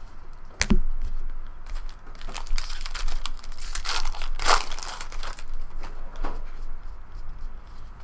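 Foil wrapper of a trading card pack crinkling and tearing as it is opened, with a sharp tap just under a second in.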